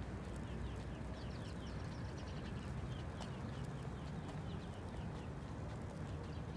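Footsteps on a concrete sidewalk over a low steady rumble, with a songbird giving a run of quick, falling chirps from about a second in for several seconds.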